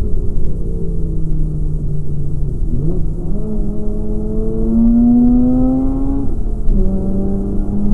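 Mazda RX-8's rotary engine heard from inside the cabin as the car is driven hard on a circuit. Its drone jumps up in revs about three seconds in, climbs steadily under acceleration, dips briefly as it shifts up about six and a half seconds in, then climbs again.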